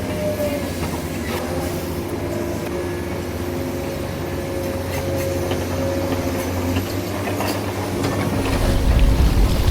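Radio-controlled model truck running: a steady motor and gearbox whine with rattling clicks, and a louder low rumble near the end.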